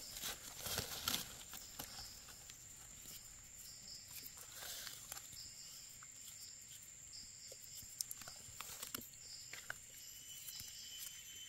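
Soft scraping and rustling of a small knife and fingers in forest soil as egg-stage Amanita mushrooms are dug out and scraped clean, busiest in the first second or so, then a few faint scrapes and clicks. A steady high insect drone runs underneath.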